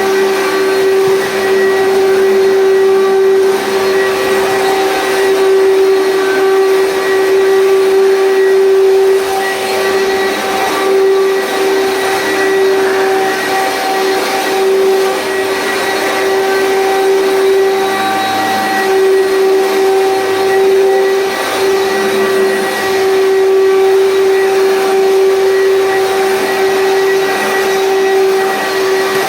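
Commercial vacuum cleaner running, its motor giving a loud, steady whine.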